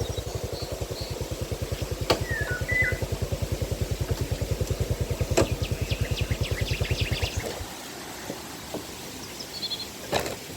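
A small engine running with a steady low putter of about ten beats a second, cutting off abruptly about seven and a half seconds in. Birds chirp over it now and then, with a few sharp clicks.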